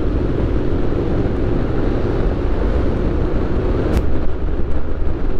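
Triumph Street Scrambler 900's parallel-twin engine running through a Zard aftermarket exhaust, cruising at a steady throttle. A short sharp click about four seconds in.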